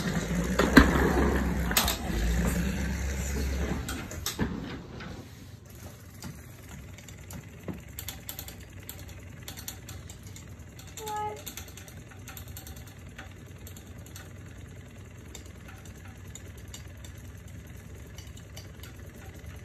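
Motorized rolling cat toy's small motor whirring as it runs across a hardwood floor, loudest and busiest for the first four seconds and then quieter, with light ticks. A brief chirp comes about eleven seconds in.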